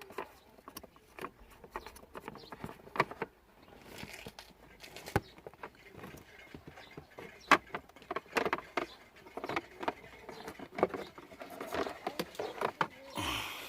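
Irregular clicks, taps and light rustling from plastic interior parts and the cabin air filter being handled during a cabin filter change, with a few sharper knocks.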